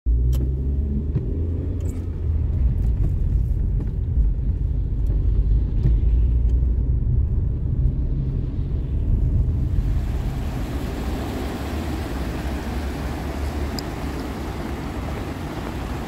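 Low rumble of a car driving on wet roads, heard from inside the cabin. About ten seconds in it gives way to a steady, brighter hiss of outdoor wet-road and traffic noise.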